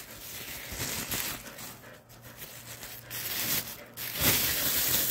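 Soft rustling and crinkling handling noise in several stretches, loudest near the end.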